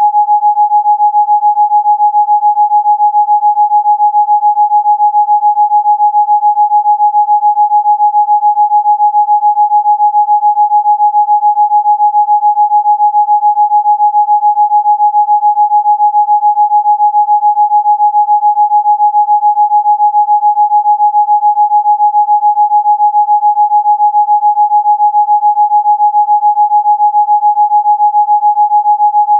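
An electronically generated pure sine tone held at one steady mid pitch without change: a Rife frequency tone.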